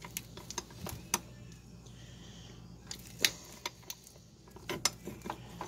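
Line wrenches clicking and clinking against the brake hose fitting as the flare nut is worked to break it loose. There are scattered sharp metal taps, the loudest a little past three seconds in.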